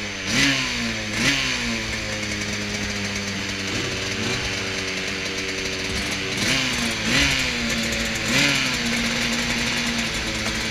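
Rotax DD2 shifter kart's 125cc two-stroke engine idling at a standstill, blipped on the throttle in short revs: twice near the start, once lightly midway, then three more in the second half, each dropping back to idle.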